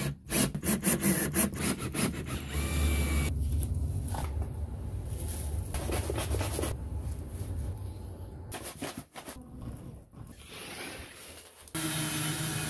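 Workshop handling sounds: wood and hardware rubbing, scraping and clattering. Near the end a cordless drill starts up and runs steadily, driving a screw into a wooden dowel.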